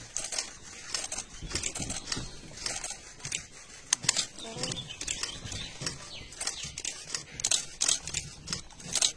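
Scattered sharp clicks and rustles at an uneven pace, with faint low voices underneath.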